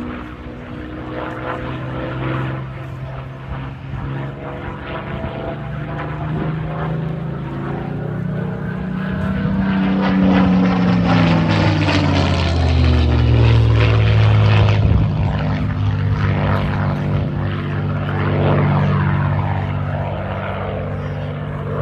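Supermarine Spitfire's V12 piston engine droning as it flies past. The sound grows louder to a peak a little past halfway, its pitch dropping as the aircraft passes, then eases off.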